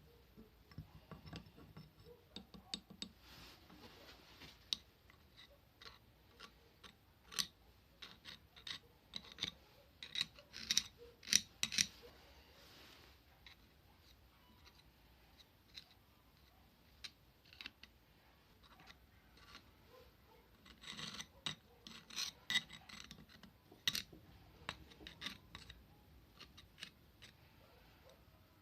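Irregular clicks, taps and short scraping rubs of small metal parts being handled and worked by hand, with a cluster of quick clicks about ten seconds in and another about twenty-one seconds in.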